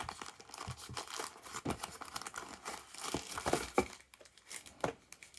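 Packaging being handled during an unboxing: irregular crinkling and rustling with scattered small clicks and knocks as paper inserts and the box are moved about.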